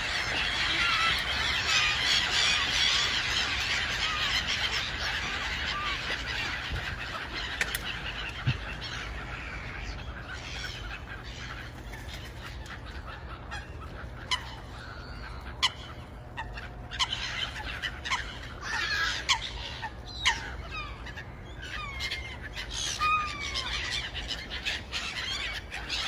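A flock of gulls calling: a dense chorus of overlapping cries for the first ten seconds or so, thinning to scattered single harsh calls, several falling in pitch. A low steady rumble runs underneath.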